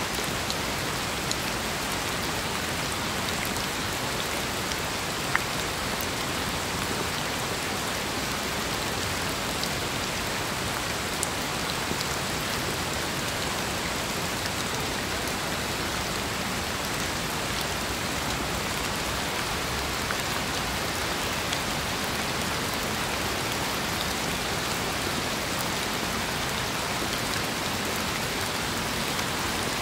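Steady rain, an even hiss with scattered sharper drop hits, the loudest about five seconds in.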